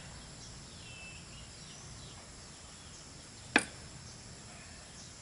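Quiet rural background hiss with a few faint bird chirps, and one sharp click about three and a half seconds in.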